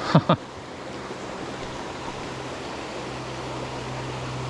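Small mountain stream rushing steadily over a shallow cobble riffle. Two short, loud falling sounds come right at the start.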